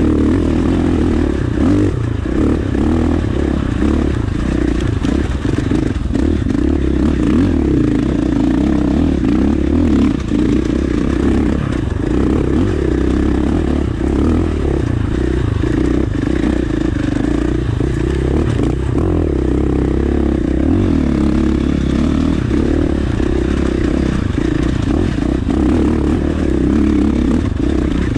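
KTM 450 four-stroke single-cylinder dirt bike engine running under steady throttle on a rocky trail, with small rises and dips in revs. Loose rocks clatter and scrape under the tyres.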